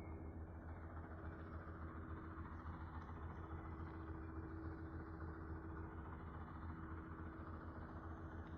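JCB backhoe loader's diesel engine running steadily at idle: a low, even rumble with a steady hum over it.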